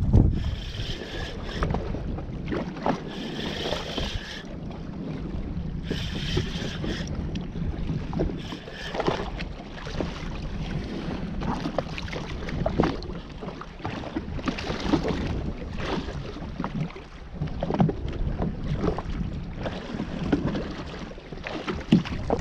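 Wind buffeting the microphone of a jetski drifting on open sea, with water slapping against the hull and scattered knocks and clicks. Short whirring stretches near the start and about six seconds in, as a spinning fishing reel is wound in on a hooked fish.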